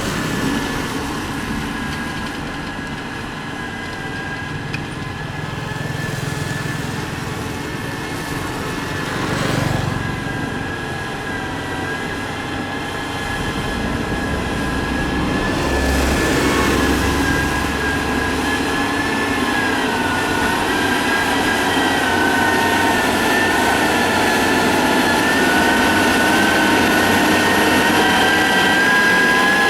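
Motor grader's diesel engine running steadily, with a high whine that wavers in pitch. It grows slowly louder toward the end.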